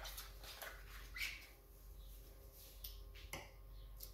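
Faint kitchen handling sounds: a few light clicks and knocks of utensils and cookware, with a brief louder one about a second in.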